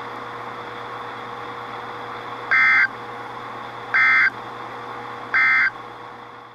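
Three short, identical warbling data bursts from a weather radio's speaker, about a second and a half apart: the SAME end-of-message code that closes a NOAA Weather Radio required weekly test. Steady radio hiss with a low hum runs underneath.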